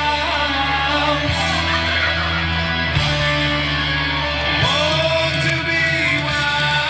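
Background music: a rock song with singing over guitar and a steady bass line.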